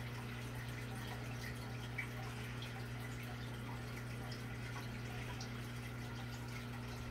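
Fish-tank fountains trickling and dripping, louder because the tanks are low on water, over a steady low hum from a running ceiling fan.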